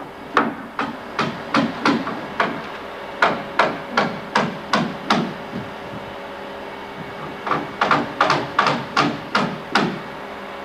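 Hammer driving nails: three runs of steady blows, about two or three a second, with short pauses between.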